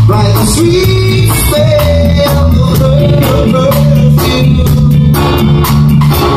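Live reggae band playing: a heavy bass guitar line and drum kit under electric guitar, with long held sung notes over the top.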